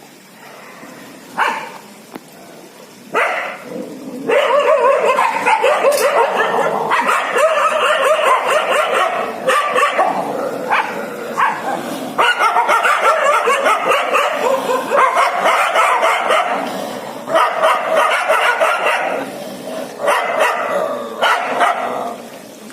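Street dogs fighting: two short barks about one and a half and three seconds in, then from about four seconds a loud, near-continuous din of barking and yelping with only brief breaks.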